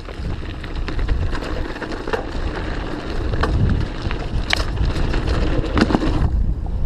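Mountain bike descending a dirt trail at speed: wind buffeting the microphone over a steady tyre rumble, with the bike rattling and clicking sharply over bumps.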